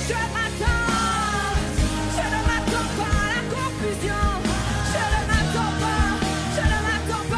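A woman singing a French worship song with a live band, her voice gliding over steady bass and regular drum beats.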